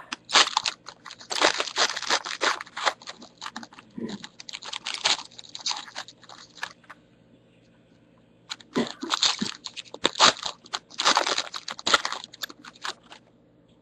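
Trading card pack wrappers crinkling and tearing as packs are opened by hand. The sound comes in quick, irregular bursts, with a short pause about seven seconds in.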